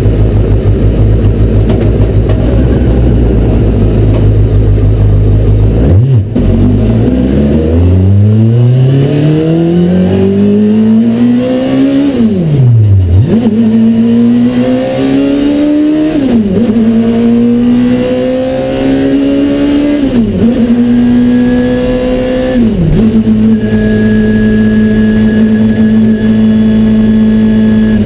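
Honda CBR954RR Fireblade inline-four motorcycle engine swapped into a Subaru 360, heard from inside the cabin. It runs low and steady for about six seconds, then revs up as the car pulls away. It climbs through the gears with four upshifts, each a quick drop in pitch, and settles to a steady cruise for the last few seconds.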